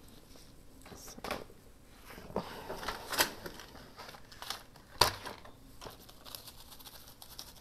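Paper crafting materials handled on a desk: intermittent rustling and crinkling with a few sharp taps, the loudest about three and five seconds in.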